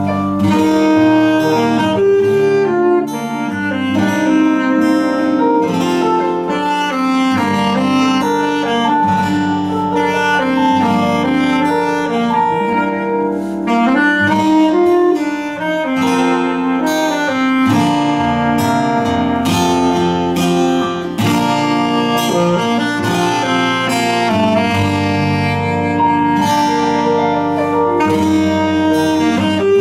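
A small live band playing a song on guitar, saxophone and keyboard, with sustained melodic notes over strummed and plucked accompaniment.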